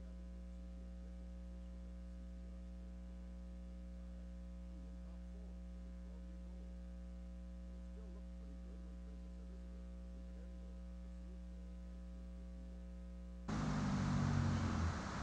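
Steady electrical mains hum. Near the end it cuts suddenly to louder outdoor background noise.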